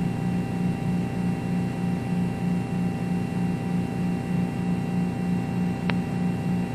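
Steady electrical hum with a low pulsing drone and a few faint, thin whining tones above it, and one brief click near the end. It cuts in and cuts out abruptly, as a recording gap does.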